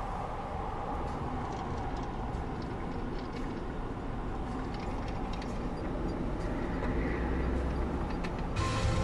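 Steady road and engine rumble heard from inside a car moving slowly through traffic. A deeper rumble swells near the end as the car passes close to a parked fire engine, and music starts suddenly just before the end.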